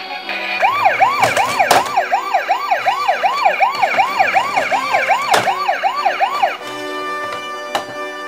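Electronic siren sound: a fast yelp of quickly repeating rising sweeps, about three a second, with a few sharp clicks. It stops about two-thirds of the way through, and music carries on after.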